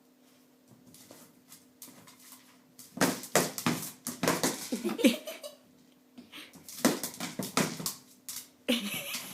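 A puppy knocking a food-dispensing toy about on a hard floor, with dry kibble rattling inside it. The clatter comes in three bursts of one to two seconds with short pauses between, over a faint steady hum.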